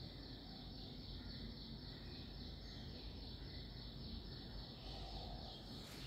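An insect trilling steadily at a high, even pitch over faint background hiss.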